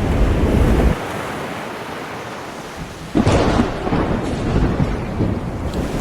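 Storm sounds by the sea: a loud low rumble cuts off about a second in, leaving a steady rain-like hiss, then a sudden loud surge of rushing, rumbling noise starts about three seconds in and rolls on in swells.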